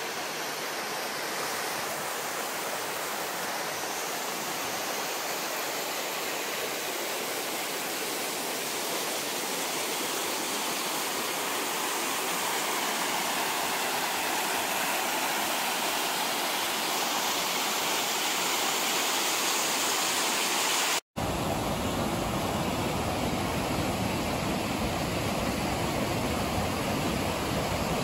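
Steady rushing of water from a mountain stream or falls, an even hiss with no pitch to it. After a brief cut about three-quarters of the way in, the noise carries more low rumble.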